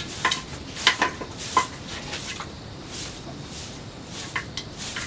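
Scattered light clinks and knocks of small hard objects, several in the first two seconds and a couple more near the end.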